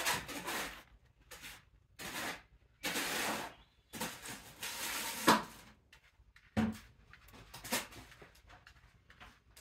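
Kittens' claws scratching and scrabbling on the mesh and fabric walls of a playpen as they try to climb out. The sound comes in irregular rustling bursts, each lasting up to about a second and a half.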